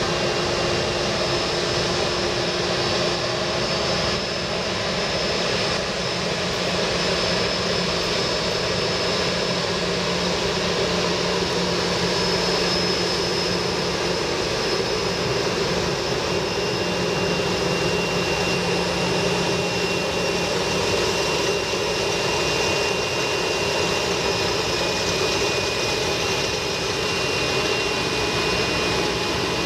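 Twin rear-mounted turbofans of an Embraer ERJ regional jet at taxi power: a steady rushing jet noise with thin high whines over it, a second whine joining about halfway through.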